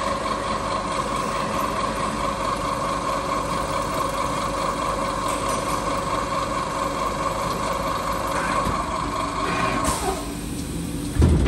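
Multi-spindle automatic drilling and tapping machine running, its spindle motors whining steadily with a mechanical rattle as the drills work on a ratchet spanner part. The whine stops about ten seconds in, and a loud low thud follows near the end.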